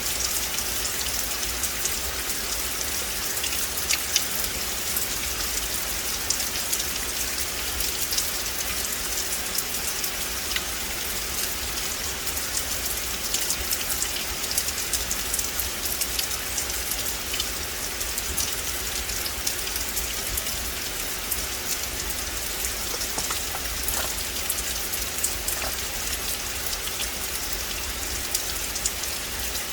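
Steady rain falling on a forest, with many separate drops ticking close by over the even hiss of the downpour.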